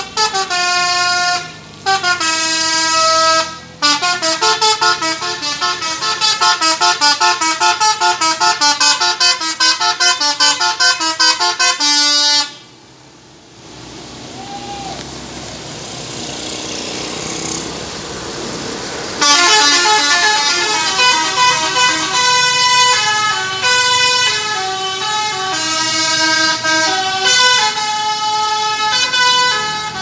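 Bus telolet horn of the Basuri type playing fast melodies of stepped notes, with two brief breaks early on. About twelve seconds in the melody stops and engine and road noise rise as a bus approaches on the wet road, then a horn melody starts again about nineteen seconds in.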